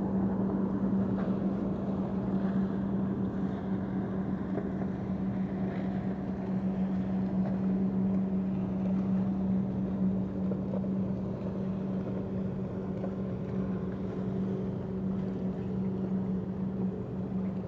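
A steady engine drone: one constant low hum that holds its pitch throughout, over a low background rumble.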